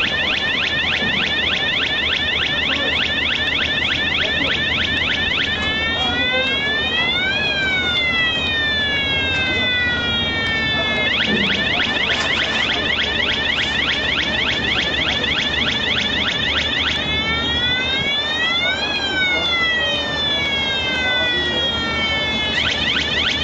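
Electronic warning siren on a bridge-girder launching gantry, sounding while the girder is moved: a rapid repeating yelp switches to a slower rising-and-falling wail and back, changing about every five to six seconds. A steady low hum runs underneath.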